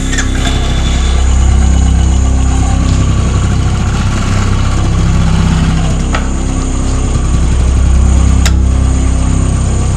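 Motorcycle engine running at low revs as the bike is ridden slowly, the sound swelling a little about a second and a half in and again near the end.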